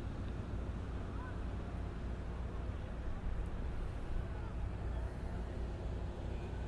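Steady low rumble of outdoor background noise, with faint voices in the distance.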